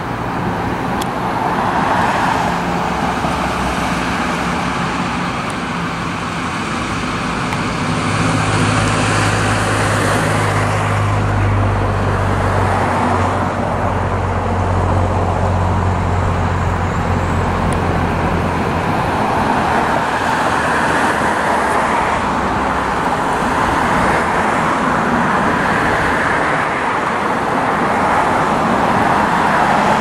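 Road traffic: cars passing one after another, the noise swelling and fading every several seconds. A deeper engine hum from a larger vehicle joins from about eight seconds in until about eighteen.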